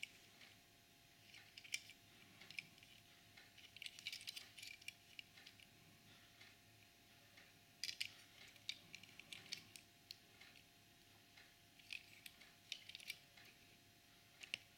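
Light, irregular clicks and taps of fingers handling a small die-cast toy car, a Hot Wheels 1991 Mercedes-Benz G-Class, turning it over in the hand, in scattered clusters over a faint steady hum.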